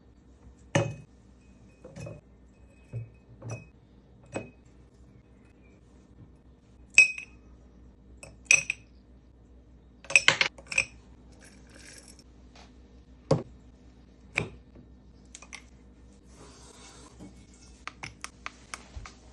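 Kitchenware clinking and knocking: glass and dishes set down and handled, about a dozen separate strikes spaced a second or more apart, some ringing briefly, with a run of quick small clicks near the end.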